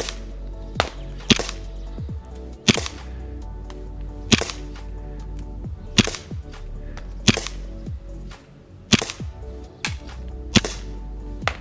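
Tokyo Marui Glock 22 gas blowback airsoft pistol firing single shots. Each shot is a sharp pop with the slide snapping back, about ten shots fired at an uneven pace, roughly one every second.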